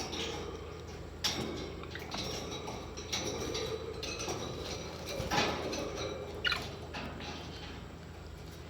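Small parrots chirping and chattering in short bursts of squeaky calls, one of them a quick falling squeak, over a steady low hum.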